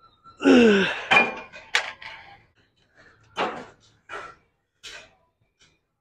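Clanks and knocks of gym equipment being worked: a loud one with a falling ringing pitch near the start, then several shorter, softer knocks.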